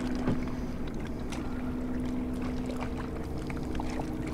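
Boat motor running steadily at trolling speed, a constant hum over low rumble, with a few faint scattered ticks.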